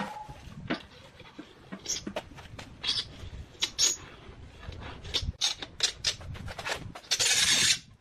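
Scattered taps, clicks and rubbing of floor tiles being pressed and shifted by hand on concrete, with a short, loud hissing scrape near the end.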